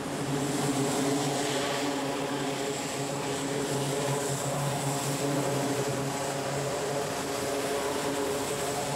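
Aircraft engines running steadily on a carrier flight deck: an even, pitched drone with a thin high whine above it.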